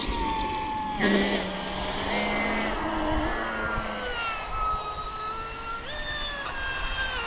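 Pro Boat Impulse 32 RC speedboat's brushless motor running hard on 8S with a three-blade prop: a high whine that jumps up sharply about a second in, then sags, and jumps and drops again near the end as the throttle changes.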